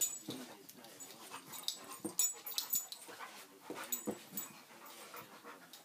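Dog sounds: a string of short, irregular vocal noises mixed with scattered clicks and scuffling.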